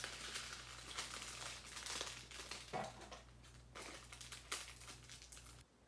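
Small plastic zip bags of diamond painting drills being handled, with irregular crinkling and crackling that cuts off suddenly near the end.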